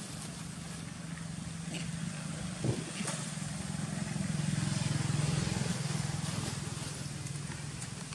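A motor engine's steady low hum that grows louder to a peak about halfway through and then fades again, with a short knock near the start of the swell.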